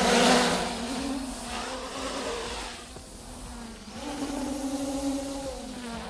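Traxxas Aton quadcopter's propellers and brushless motors whining in flight, the pitch gliding up and down as it manoeuvres. It is loudest just after the start, drops away around three seconds in, then climbs in pitch and grows louder again about a second later.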